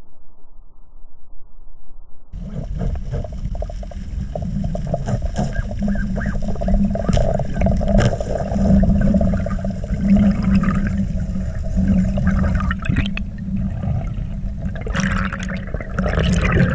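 Underwater sound picked up by an action camera in its waterproof housing: a steady low rumble of water with scattered clicks and crackles. Near the end there is a louder burst of hiss and crackling.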